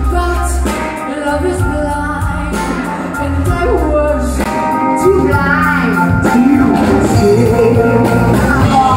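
Live country band playing: electric guitars, bass and drums under a woman's lead vocal, which bends and holds notes more clearly in the second half.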